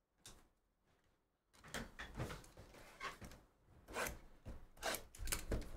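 Shrink-wrapped cardboard trading-card box being handled on a table: a single short knock about a quarter second in, then from about a second and a half in an irregular run of taps, scrapes and plastic rustles as the box is picked up and turned in the hand.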